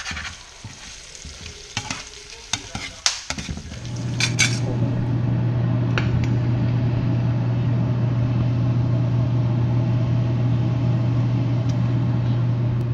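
Metal tongs scraping and clicking in a frying pan of flaked trout, with a light sizzle. About four seconds in, this gives way to a steady low hum and an even rush of noise from a pot of blue crabs at the boil.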